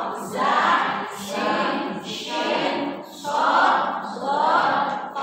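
A group of women reciting the Arabic hijaiyah letter names aloud in unison, in a sing-song chant of drawn-out syllables, about one every two-thirds of a second.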